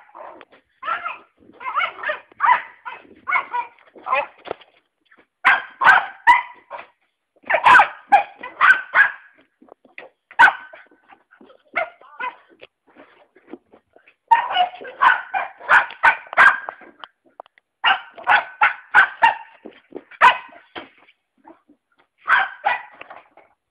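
Five-month-old cocker spaniel puppy barking and yipping: short, high barks several a second, in runs broken by short pauses.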